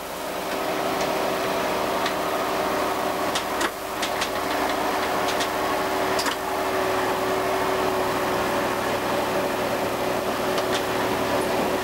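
Diesel railcar heard from inside the driver's cab as it pulls away from a station. There is a steady engine and transmission hum with a held tone, coming up over the first second, and a few light clicks along the way.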